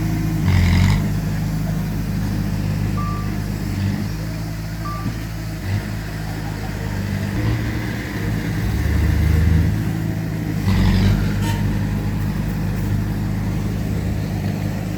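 Heavy diesel engines of a bulldozer and dump truck running, their pitch and load rising and falling. Two short high beeps come a couple of seconds apart, and there are two brief hisses, one at the start and one about eleven seconds in.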